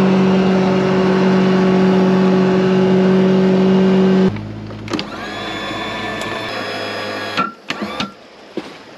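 Tiller outboard motor on an aluminium jon boat running steadily under way. About four seconds in it drops to a lower, quieter idle, and it shuts off a few seconds later, followed by a few light knocks.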